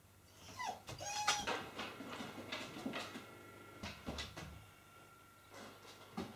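A yellow Labrador whining in a few short, high whimpers in the first second or two, the whine of a dog just left alone by its owner. Its claws then tap and click on a wooden floor as it moves about.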